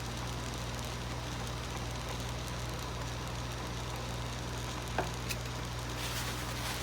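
Continuous inkjet printer running: a steady low hum with an even hiss, and a sharp click about five seconds in.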